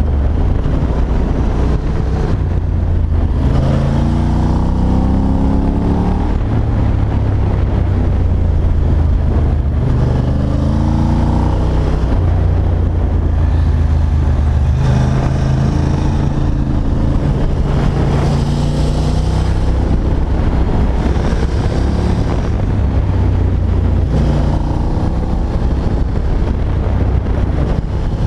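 Ducati Monster's L-twin engine heard from the rider's seat. It runs with a steady low drone and rises in pitch several times as the bike accelerates on a winding road, easing off in between.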